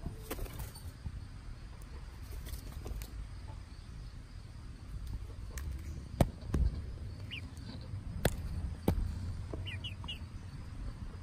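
Young Barred Rock chickens giving short, high, falling peeps: one past the middle, then three quick ones near the end. Three sharp taps, the first and loudest at about six seconds, sound over a low rumble.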